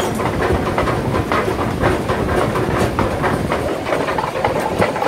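Workshop machinery clattering with a dense run of irregular metallic knocks, about two to four a second, over a steady mechanical din: typical of a forge shop's power hammer running while hot steel is worked.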